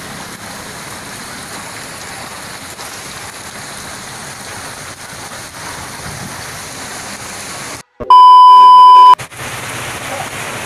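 Steady rain pouring onto a wet road and pavement. About eight seconds in the sound drops out and a loud, single-pitch electronic beep sounds for about a second, after which the rain resumes.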